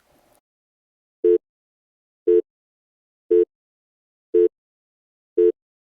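Five short, identical electronic beeps, one a second: a five-second countdown timer.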